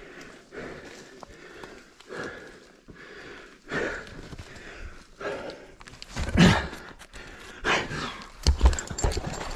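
A rope climber's heavy breathing and effort sounds, with scuffs and knocks from the climb, coming in irregular short bursts; the loudest is about six and a half seconds in.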